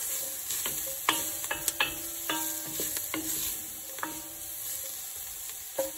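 Diced onion, carrot and celery sautéing in oil with a steady sizzle, stirred with a wooden spoon. Scattered clicks and scrapes come from the spoon against the enamelled pot.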